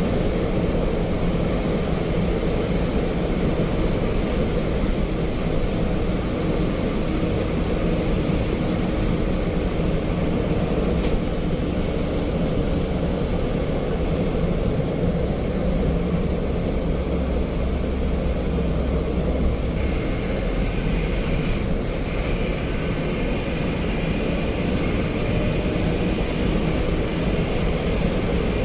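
Steady engine and road noise of a vehicle driving along a road.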